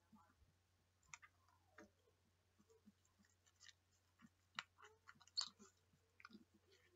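Slime being squeezed and poked, giving soft scattered clicks and pops, the loudest pop about five and a half seconds in, with a short falling squeak near the start.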